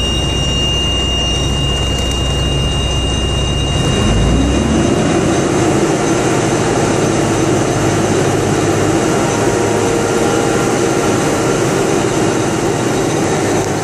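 Caterpillar 3306C inline-six diesel engine running, heard from the truck's cab. About four seconds in it revs up and holds steady at a higher speed.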